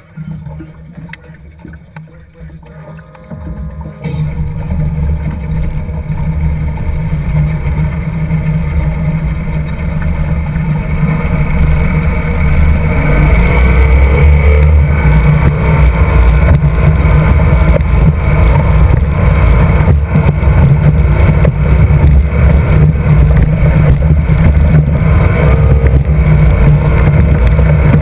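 Mercury 2.5 EFI V6 two-stroke racing outboard running low for the first few seconds, then opened up about four seconds in and building speed until it runs flat out and steady from about halfway, with water and wind rushing past the boat.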